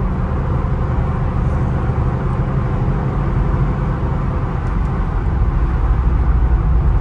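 BMW X5 V8 engine and road noise heard from inside the cabin while driving, a steady low hum and rumble that grows a little louder near the end. The automatic gearbox is held in third gear in limp mode, and the tyres are slightly out of round from standing.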